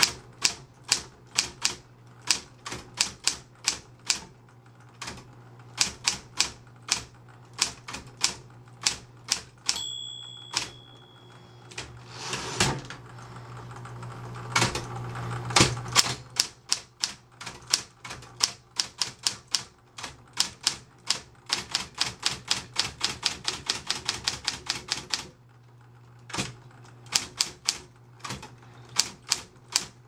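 Smith-Corona Electra 120 electric typewriter being typed on, its keys and typebars striking in irregular bursts over the steady hum of its motor. The margin bell rings once about a third of the way in, followed by a longer whir ending in a heavy clunk as the powered carriage returns, and later a fast run of strokes.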